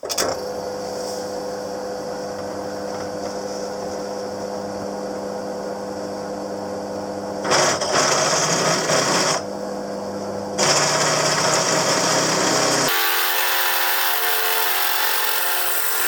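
Electric power tool running steadily while making large steel penny washers. A little after halfway it cuts into the metal twice, each time with a louder, harsher hiss. Near the end it carries on at a higher pitch.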